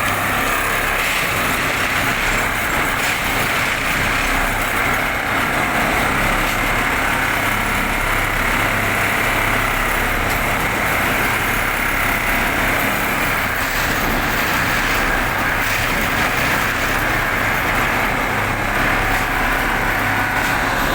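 Industrial machine running steadily: a continuous mechanical whir with a low, even hum underneath.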